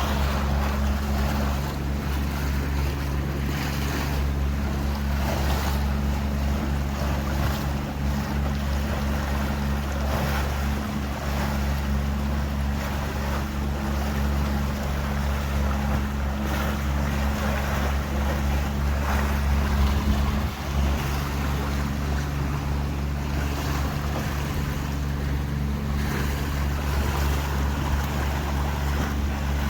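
Tour boat's engine running steadily with a low, even hum, over water rushing past the hull and wind on the microphone.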